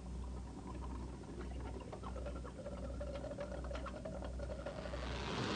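Synthetic film sound effects: a patter of small clicks and squeaky, chirping tones over a steady low hum, growing louder toward the end.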